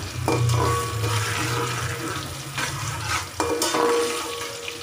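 Sliced onions sizzling as they fry in oil in a metal pot, browning toward golden brown, while a slotted metal spatula stirs and scrapes them around the pot. Two sharper knocks of the spatula on the pot come about a third of a second in and about three and a half seconds in.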